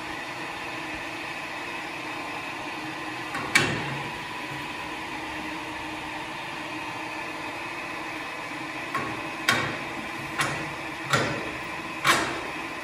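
Steady hum of a large diesel engine's electric lube oil priming pump running, with sharp metallic clanks: one about three and a half seconds in, then five more about a second apart near the end.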